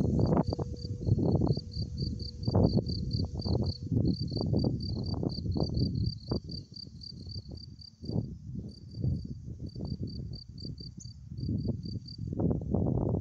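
Wind buffeting the microphone in uneven gusts, the loudest sound, over crickets chirping in the grass: short high chirps, about four a second, with brief pauses. The chirping stops shortly before the end.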